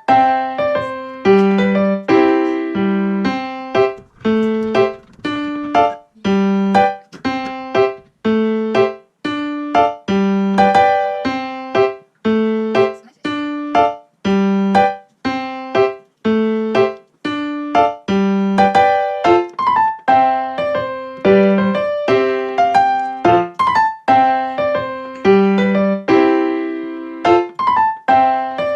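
Background music: a piano or electric-piano tune of clear single notes with a steady, bouncy rhythm, each note struck and fading.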